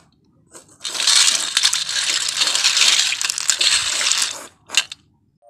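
Live freshwater snails being stirred by hand in a steel bowl of water, their shells clattering and grinding against one another and the bowl: about three and a half seconds of dense rattling from about a second in, then a single click.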